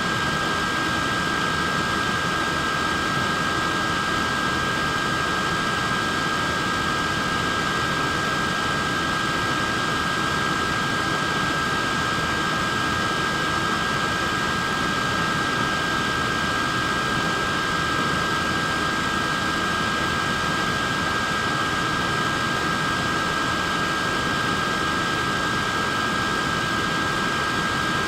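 Portable neck fan running steadily: an even rush of air from its small blades, with a constant high-pitched motor whine on top.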